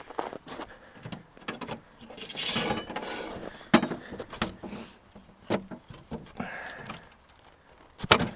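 Scattered clinks and knocks of hand tools and metal parts being handled, with a short stretch of rustling a couple of seconds in.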